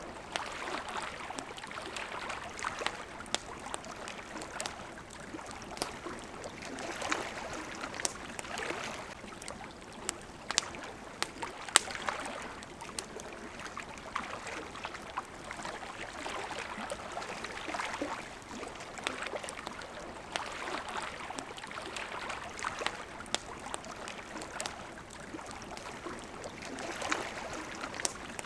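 Gentle water lapping and trickling in slow swells, with a campfire crackling over it: scattered sharp pops, one louder pop about twelve seconds in.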